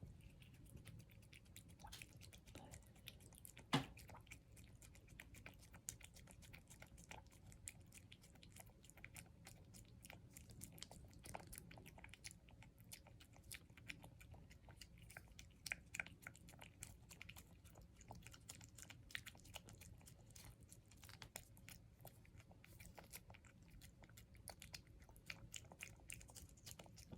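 Cat eating a treat, faint quick chewing and mouth clicks, with one sharper click about four seconds in.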